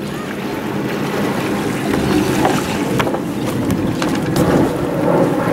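Dockside waterfront ambience: wind buffeting the microphone over water moving against moored dinghies, with a few light knocks near the middle.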